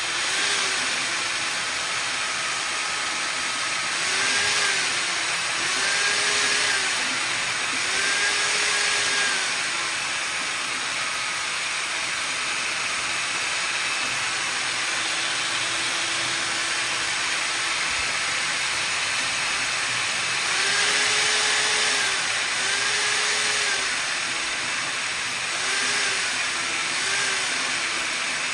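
Drain-cleaning machine running steadily with a hissing rush. A tone repeatedly rises and falls over it in short swells, in two groups.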